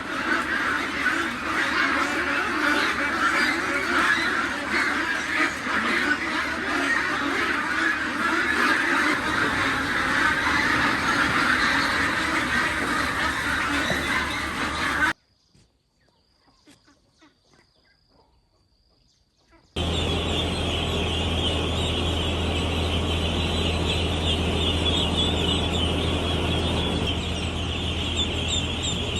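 A large flock of ducks calling all together in a dense, continuous din. The sound cuts to near silence for about five seconds just past the middle, then resumes with higher-pitched calling over a steady low hum.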